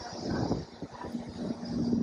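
Wind buffeting the microphone in irregular low gusts, with a faint steady hum entering about halfway through.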